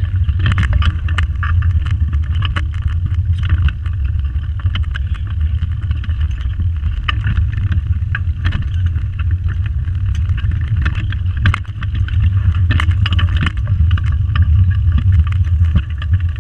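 Pedal go-kart rolling along tarmac: a steady low rumble from the wheels and frame, with many quick rattles and clicks from the chassis.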